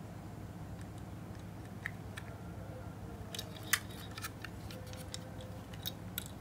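Small sharp clicks and taps of plastic and diecast toy parts as a Hot Wheels Retro Rig transport truck is handled in the fingers. They come sparsely at first and thicker from about halfway on, over a faint steady hum.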